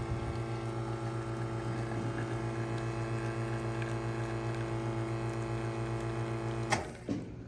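Victoria Arduino White Eagle espresso machine running a shot through one group: a steady pump hum with the water flowing, cutting off about seven seconds in. This is the first shot after cleaning, pulled to be thrown away.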